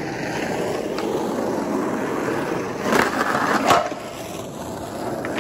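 Skateboard wheels rolling over smooth concrete. About three seconds in, the trucks slap onto a curb and grind along it, with a second hard hit a moment later, in a slappy grind attempt. The board then rolls on.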